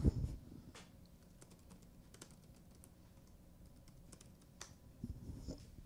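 Laptop keyboard being typed on: faint, irregular key clicks as a terminal command is entered.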